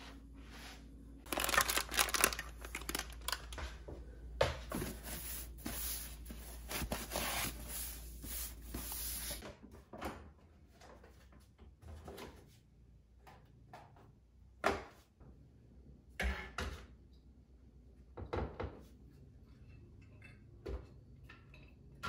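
Plastic containers and bagged food being handled and taken out of a kitchen cabinet. There is a stretch of rustling and crinkling for the first several seconds, then scattered knocks and clunks as items are lifted and set down.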